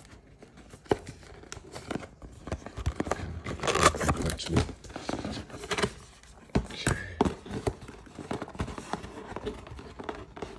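Cardboard packaging being opened by hand: box flaps prised up and pulled open, with scraping and crinkling of card and irregular small knocks, busiest about four seconds in.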